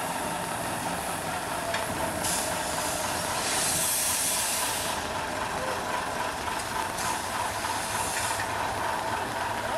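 BR 50 steam locomotive moving slowly with a steady hiss of steam over a steady hum. A louder burst of hiss comes about three and a half seconds in and lasts about a second and a half.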